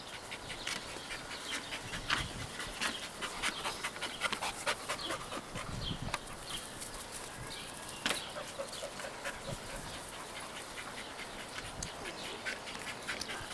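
A dog panting, with many short, irregular clicks and ticks throughout.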